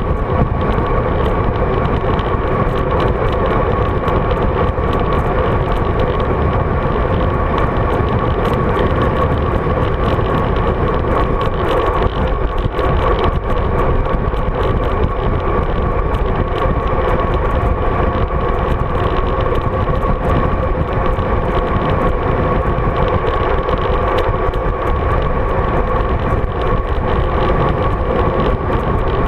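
Steady wind and road noise on a road bike's handlebar-mounted GoPro Hero 3 while riding, loud and even throughout, with a faint constant tone running through it.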